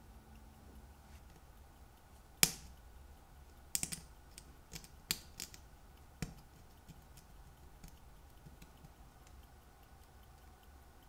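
Sharp clicks and taps of small watchmaking hand tools working on a watch: a scattered series, the loudest about two and a half seconds in and most of the rest within the next four seconds, over a faint steady hum.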